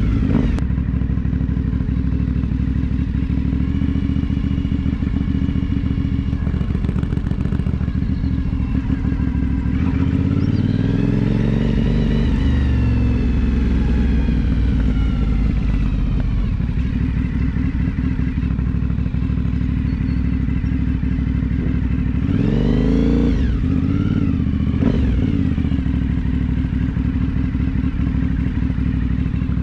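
Aprilia Dorsoduro 750's V-twin engine heard from the rider's seat while riding. Its note rises and falls with the throttle and gear changes, with a quick rev up and back down about two-thirds of the way through.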